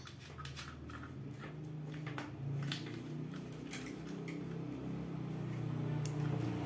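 Small plastic clicks and taps as the coil cable's plug is worked into the socket on a metal detector's control box, over a low steady hum that grows slowly louder toward the end.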